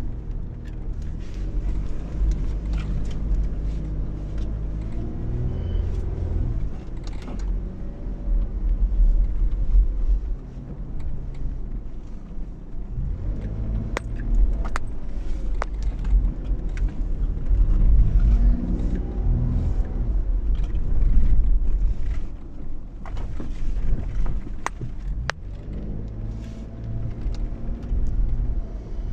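Four-wheel-drive SUV engine driving off-road, its speed rising and falling again and again as the throttle is worked, with scattered knocks and rattles.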